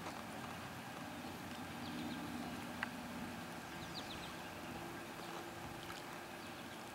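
Quiet outdoor lakeside ambience: a faint low steady hum and a few faint high chirps, with one small click about three seconds in.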